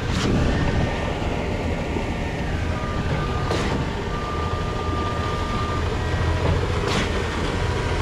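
Concord concrete boom pump truck running and pumping concrete: a steady mechanical drone from the diesel engine and hydraulics, with a sharp clack about every three and a half seconds as the pump changes stroke.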